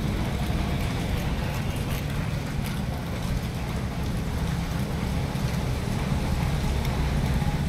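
Steady noise of heavy rain with a deep rumble, and a few faint clicks from two cats eating wet food off plates close by.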